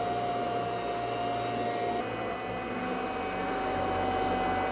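Electric round-knife cloth cutter running with a steady high whine as its circular blade cuts through layered fabric; the pitch shifts slightly about two seconds in.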